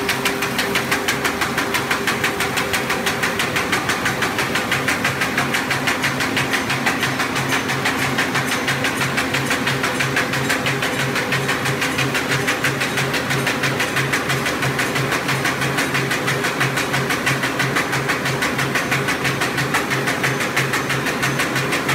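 V-bottom paper bag machine running, feeding a kraft paper web off the roll through its rollers, with a fast, even mechanical clatter over a steady pulsing hum.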